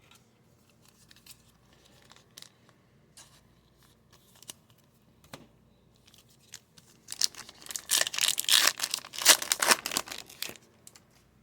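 Trading cards being handled with scattered light taps, then, about seven seconds in, a plastic card pack wrapper is torn open and crinkled for about three and a half seconds.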